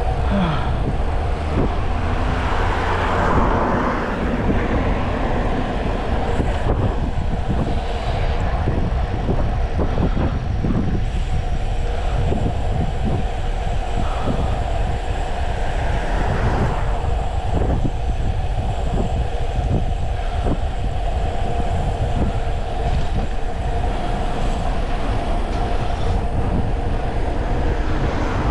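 Wind rushing over the microphone and rattling road noise from a Brompton folding bike speeding downhill, with frequent short knocks from bumps and a faint steady hum underneath.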